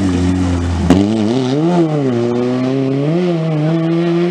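Peugeot 106 rally car's engine pulling away hard under full throttle, with one sharp crack about a second in. Its revs climb and drop through two upshifts, then rise steadily as the car draws away.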